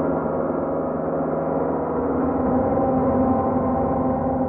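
Ritual noise music off a cassette tape: a dense, steady drone of many held tones layered over a low rumble, unchanging throughout.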